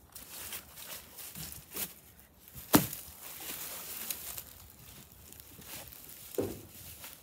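A portable folding solar panel being unfolded by hand: scattered knocks and clacks as its sections are pulled apart and swing open, the loudest about three seconds in, with handling rustle between them.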